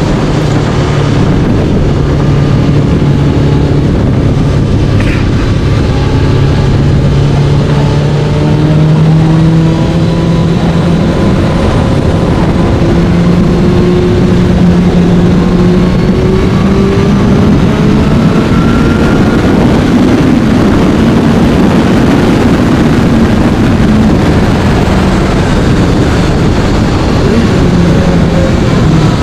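1996 Suzuki GSX-R750 SRAD's inline-four engine running on the road, heard from the rider's helmet mic under heavy wind noise. The engine note rises steadily through the middle, then eases back.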